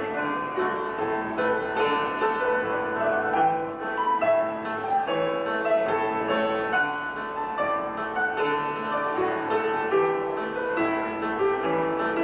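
Upright piano being played: a continuous run of held notes and chords.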